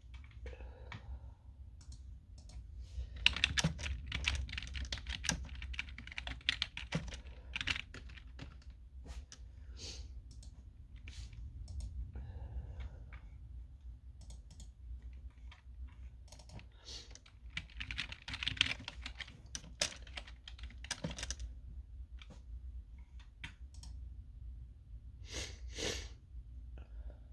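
Typing on a computer keyboard: rapid key clicks in two longer bursts with pauses between, and a few single keystrokes near the end, over a low steady hum.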